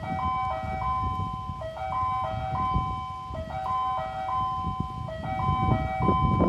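Electronic platform chime warning of an approaching train: a short melodic phrase of several notes that repeats about every 1.7 seconds, over a low rumble.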